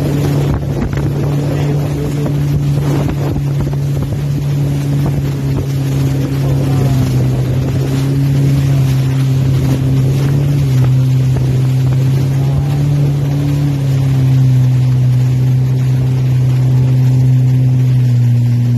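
Jet ski engine running steadily at speed, its note dipping slightly lower about ten seconds in, with wind buffeting the microphone and water rushing past the hull.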